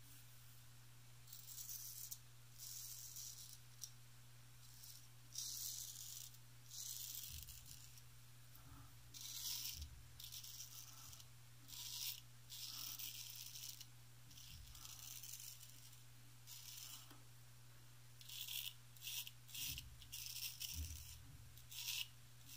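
Wade & Butcher 7/8 Celebrated full-hollow straight razor scraping through lathered stubble in a run of short strokes, each a brief crisp rasp.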